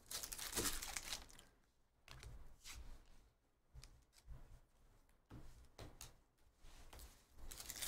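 Foil trading-card pack wrapper crinkling as it comes off a stack of baseball cards, then faint, scattered slides and flicks of the cards being thumbed through one by one.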